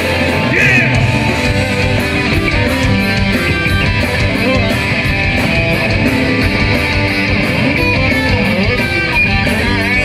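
Live Southern rock band playing, with electric guitars to the fore over a drum kit keeping a steady beat of about four strokes a second.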